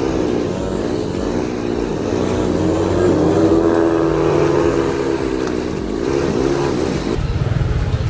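Small motorcycle engine running under the rider, its pitch rising and falling as the throttle opens and closes while riding slowly. About seven seconds in, it drops to a lower rumble as the bike slows down.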